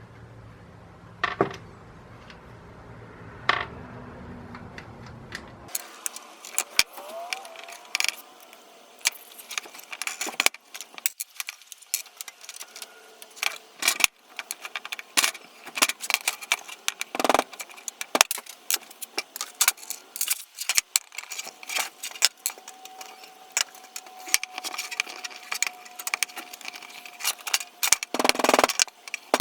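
Small metal parts and tools clinking and rattling as the brass saw nuts and screws are taken off old Disston hand saws: many sharp clicks and taps, coming thick and fast from about six seconds in, after a few isolated clicks over a low hum.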